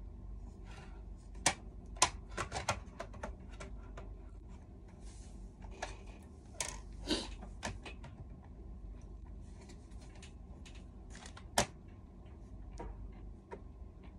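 Plastic paper cassette and sheets of photo paper for a Canon Selphy printer being handled: scattered sharp clicks and taps with soft paper rustling. The loudest clicks come about a second and a half and two seconds in, and again near twelve seconds.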